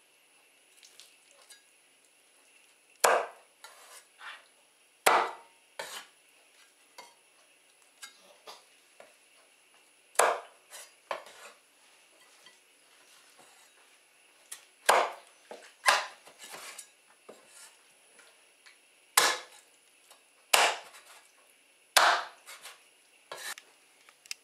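Kitchen knife chopping a poached chicken into pieces on a wooden cutting board: about a dozen sharp knocks at uneven intervals, with quieter knife and meat handling sounds between them.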